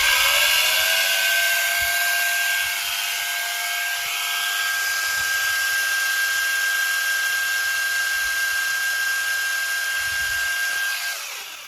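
60 V cordless multi-tool with its pole pruner attachment, run free without cutting as a test before use. The electric motor and chain whine at a steady high pitch after spinning up, then wind down near the end.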